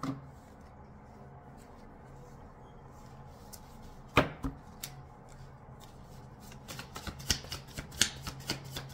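Tarot cards being shuffled by hand: a sharp snap about four seconds in, then a quickening run of card flicks and slaps near the end, over a low steady hum.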